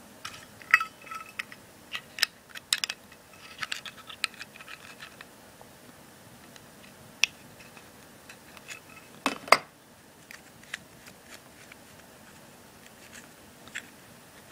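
Small metal clicks and clinks of a Zippo lighter being handled and taken apart to fit a new flint: quick clusters of clicks at first, then single sharp clicks, with the loudest pair about nine seconds in.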